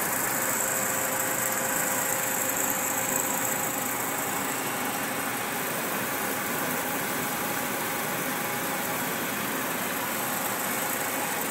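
35mm film projectors and their platter running an interlocked print: a steady mechanical running noise with faint high whines, the highest one fading after a few seconds.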